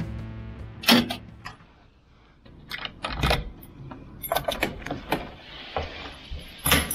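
Keys on a lanyard jangling and a key turning in a door lock, a run of irregular metallic clicks and rattles, with a louder click from the door handle and latch near the end. A single sharp knock comes about a second in.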